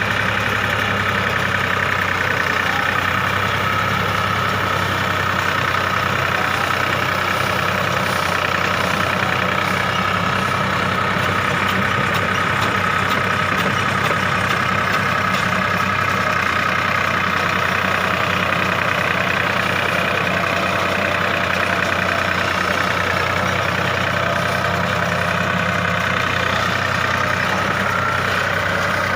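New Holland 4710 tractor's diesel engine running steadily at an even speed.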